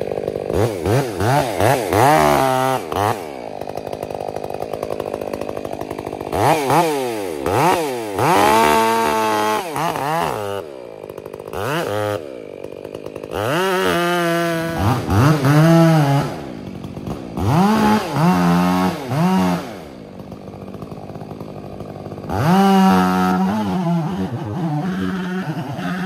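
Stihl chainsaw cutting through a tulip poplar trunk in a felling back cut, revved up and down over and over, its pitch sagging each time the chain bites into the wood and climbing again as it is eased off. It drops back to a lower, steadier run twice before being throttled up again.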